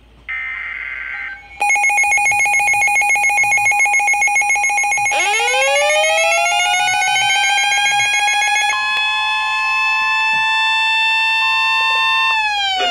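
Emergency Alert System alert tones: the end of the buzzing digital header bursts, then a loud, rapidly pulsing electronic alarm tone. About five seconds in, a rising wailing tone sweeps up and holds. Near nine seconds the pulsing gives way to a steady two-tone attention signal, and the tones fall away in pitch near the end.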